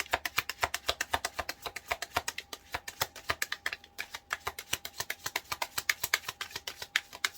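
A deck of tarot cards being shuffled by hand: a quick, continuous run of card flicks and snaps, about ten a second.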